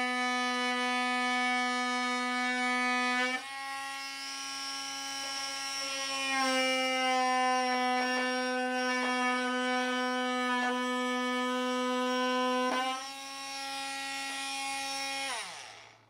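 Parkside 20V cordless oscillating multitool running with a round saw blade, cutting into a wooden strip: a steady, high buzz that shifts in level as the blade is pushed into the wood. Near the end it winds down in pitch and stops as the tool is switched off.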